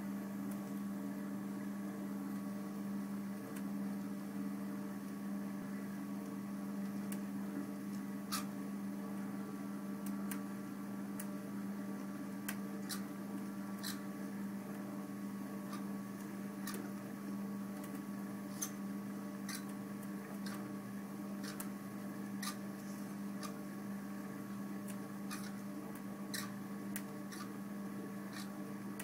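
Steady electrical hum with scattered faint clicks.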